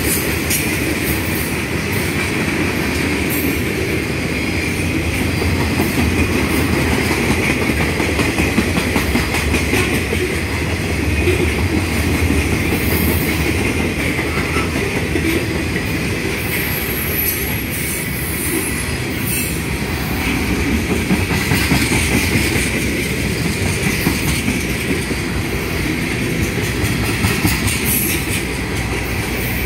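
Freight cars rolling past close by: steel wheels rumbling and clacking over the rail, with a steady high ringing from the wheels on the rail.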